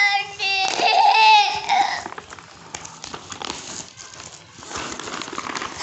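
A small child's high-pitched voice, whining and babbling, for about the first two seconds. After that the brown paper wrapping of a parcel rustles and crinkles more quietly as hands pull it open.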